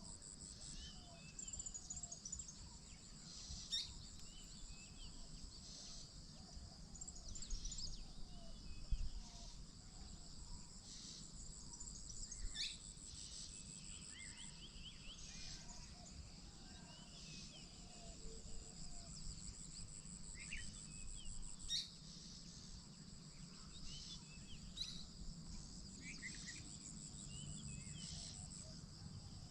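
Steady high-pitched chirring of insects such as crickets, with scattered short bird chirps and calls throughout.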